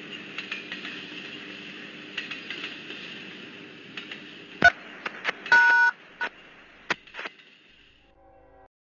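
Steady electronic hiss with scattered sharp clicks, and a short two-tone touch-tone beep a little past halfway; the hiss fades out near the end.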